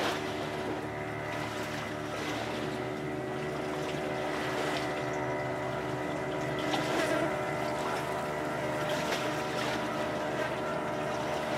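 A steady motor hum, made of many even tones that hold constant pitch, like an engine running without change, over a light outdoor noise.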